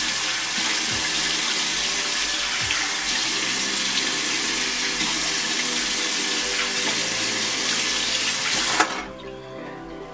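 Bathroom sink faucet running steadily into the basin as water is used to rinse cleanser off the face; the tap is shut off abruptly near the end.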